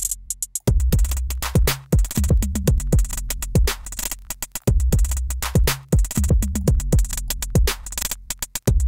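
Electronic drum-machine loop played back through Ableton's Vinyl Distortion effect: deep 808 bass notes that slide down in pitch, kicks, claps and fast hi-hat ticks, the pattern repeating about every four seconds.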